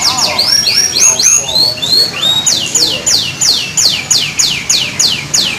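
Canary singing: a fast, continuous song of high whistled notes, hooked and rising in the first half, then a rapid series of falling slurs, about four a second.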